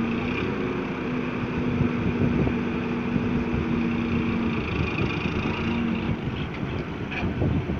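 Tractor diesel engine running steadily while it powers a mounted hydraulic grab loader lifting a load of sugarcane. Its steady note drops out briefly a little past halfway, and a few short knocks come near the end.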